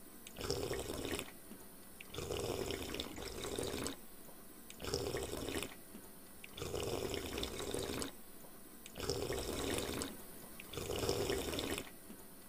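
Water running or trickling in short spells, six of them, each about a second long, with silent gaps between.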